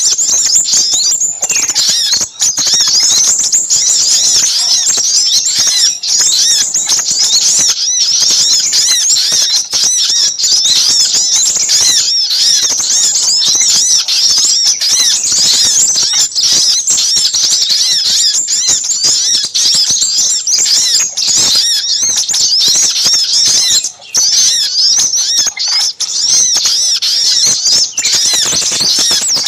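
Bird-lure recording of agitated small-bird chatter: little spiderhunter calls mixed with crimson sunbird calls, a dense, unbroken stream of rapid, high-pitched chirps.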